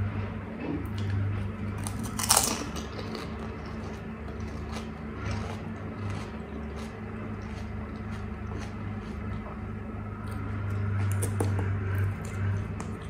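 Close-up eating sounds of a crisp pani puri filled with pani: one loud crunch about two seconds in as the hollow puri is bitten, then chewing with many small crunches and crackles.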